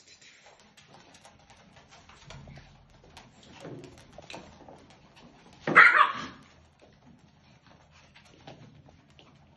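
Maltese puppies playing, with small yaps and scuffling, and one loud, sharp puppy yap about six seconds in.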